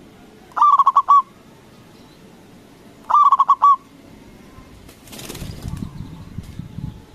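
Zebra dove (perkutut) singing two short cooing phrases, each a quick run of rapid notes, about three seconds apart. A rustling noise follows near the end.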